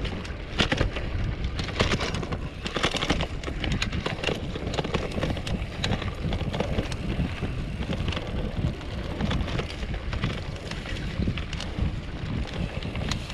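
Wind buffeting the mount-mounted action camera's microphone over the rumble of a Polygon Bend R2 gravel bike's tyres on a bumpy dirt track, with many small rattles and clicks from the bike as it jolts over the ground.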